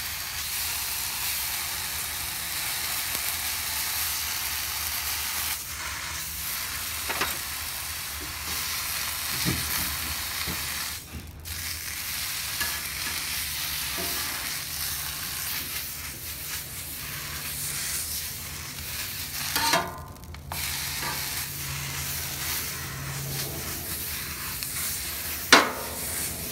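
Water sizzling on a hot Blackstone 17-inch steel griddle top as it is wiped with a towel held in tongs and scraped with a metal scraper. The sizzle breaks off briefly twice, and a sharp metal clack near the end is the loudest sound.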